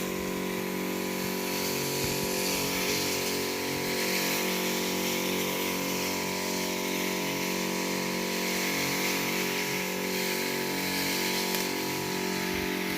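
Small gasoline engine of a motorized backpack crop sprayer running at a steady speed, with a rushing hiss of air and spray over it.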